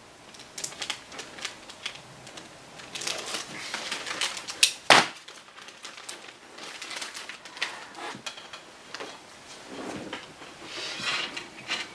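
Large plastic model-kit sprue being handled, with packaging crinkling and scattered light clicks of plastic, and one sharper click about five seconds in.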